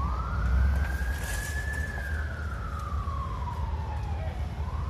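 Emergency vehicle siren sounding a slow wail: one tone rises, holds, slowly falls, and starts rising again near the end, over a steady low rumble.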